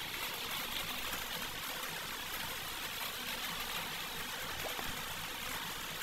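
Steady background hiss with no distinct sounds, even throughout.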